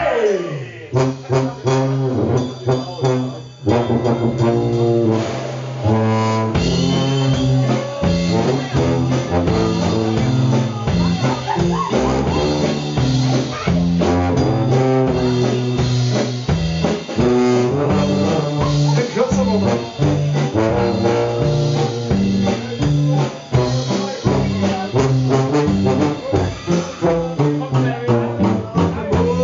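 Tuba playing a bass-register melodic line over a drum kit's steady beat in a live blues-rock band.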